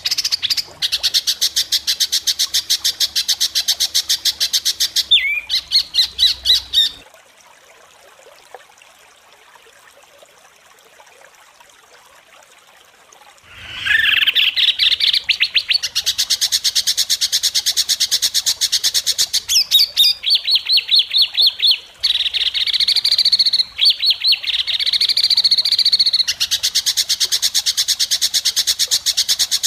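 Songbird calls: fast, harsh rattling phrases of many rapid notes, the rough 'tembakan kasar' shot calls used to train songbirds. The calls stop for about six seconds after the first quarter, then resume in long runs to the end.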